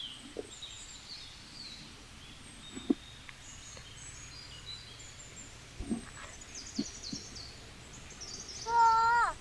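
Small birds chirping and twittering, with a few faint knocks. Near the end comes one short, loud pitched call that drops in pitch as it ends.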